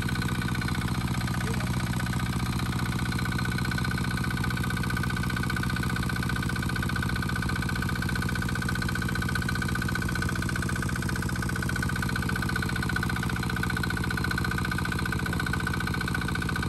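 Small engine of a water pump running steadily at an even speed.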